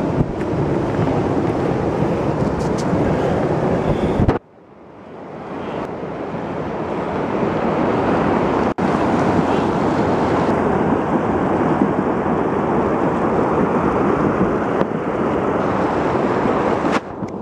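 Flash-flood surge of muddy water rushing down a dry desert wash: a loud, steady rush with wind buffeting the microphone. It drops away sharply about four seconds in, then builds back to full strength over the next few seconds.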